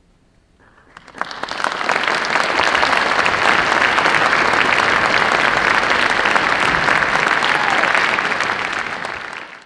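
Concert audience applauding at the end of an orchestral piece: clapping starts about a second in, swells quickly into full, steady applause, and is cut off abruptly near the end.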